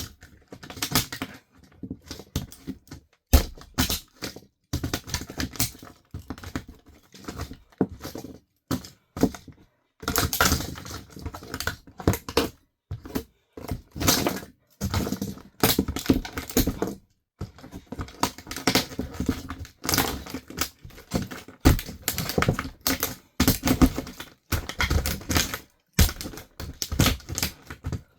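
Plastic RC toy car being crushed under high heels: irregular runs of sharp cracks, snaps and clicking crunches, broken by short pauses.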